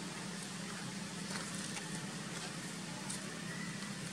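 A steady low hum with faint, scattered rustles and crackles of dry leaves as monkeys wrestle on leaf litter. There is no screaming.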